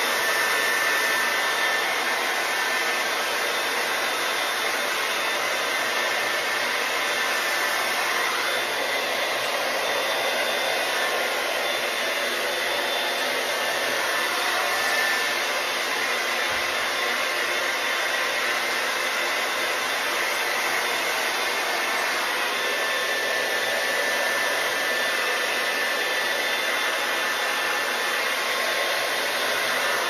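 Rotating 3-in-1 hot-air brush running steadily, blowing air while drying hair, with a faint high motor whine over the rush of air.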